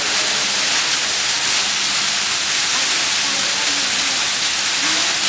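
Steady, loud hiss of rushing water.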